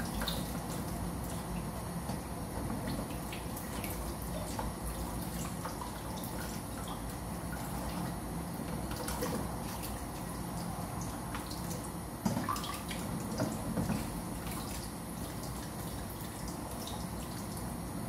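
Kitchen tap running in a thin stream onto hands and eggs in a sink, with steady splashing and dripping as the eggs are washed. Scattered light clicks and knocks ride on top, the sharpest about twelve seconds in.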